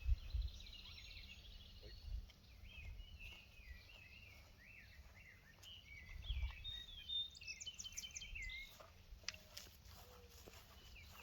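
Songbirds chirping and trilling, many short notes overlapping, over a faint low rumble.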